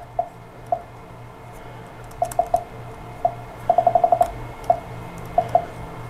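Small sharp clicks from a spudger and a replacement plastic keycap on a 2018 MacBook Pro's butterfly keyboard, as the not-fully-seated keycap is pried and pressed from the side. Scattered single clicks, with a quick run of about seven near the middle.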